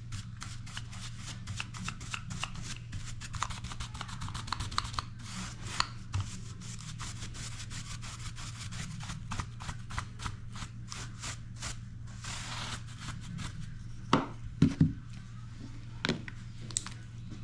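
Hand-tool work on a bajo sexto during repair: a rapid run of small scraping and clicking sounds, with a few sharper knocks a few seconds before the end, over a steady low hum.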